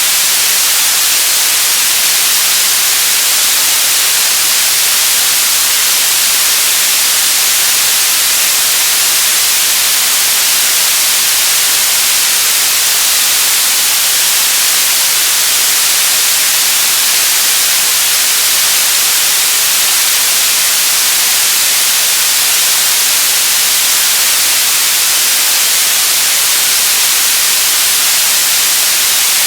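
Television static: a steady, loud hiss of white noise, bright and high-pitched, with little low end and no change throughout.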